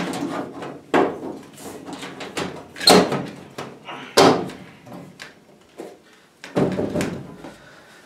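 Sheet-metal blower door panel of a Rheem gas furnace being wiped with a rag and fitted back onto the furnace cabinet: a string of knocks, clunks and scrapes, the loudest about three and four seconds in.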